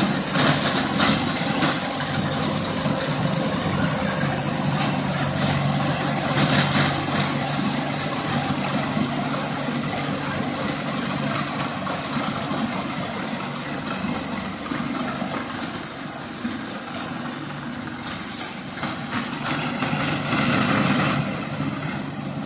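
Sonalika RX90 4x4 tractor engine running steadily under load while driving a Landforce PTO mulcher that shreds crop stubble, a low engine hum under a dense rushing whir. It eases off a little in the middle and swells again near the end.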